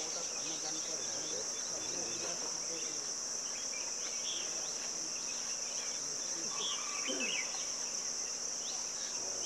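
Steady, high-pitched chorus of insects, with scattered faint short chirps and calls beneath it.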